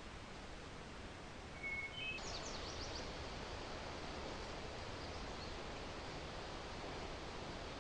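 Steady outdoor background hiss with a songbird calling about two seconds in: two short high whistled notes, then a quick run of high falling notes.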